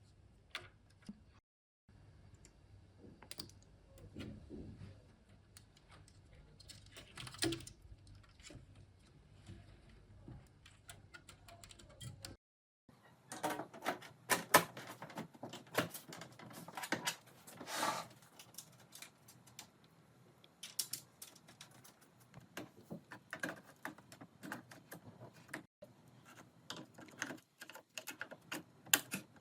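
Typing on a computer keyboard: irregular key clicks, sparse at first and much busier from about halfway through. A low steady hum sits under the first part.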